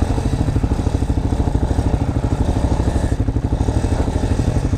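250 cc motorcycle engine idling steadily off-road, with an even, rapid pulse and no revving.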